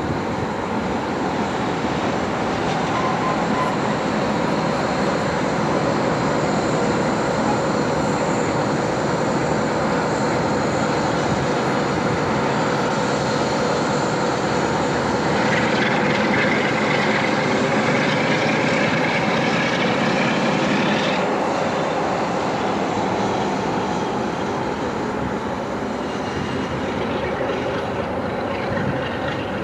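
Class 47 diesel locomotive's Sulzer twelve-cylinder engine running as the locomotive moves through, a steady heavy drone. About halfway through, a higher whine rises in pitch for several seconds and then cuts off suddenly.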